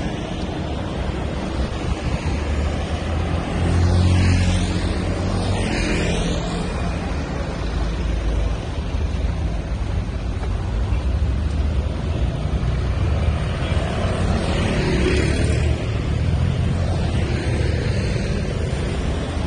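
Wind buffeting the microphone over street traffic, with a few vehicles passing, the loudest about four to six seconds in.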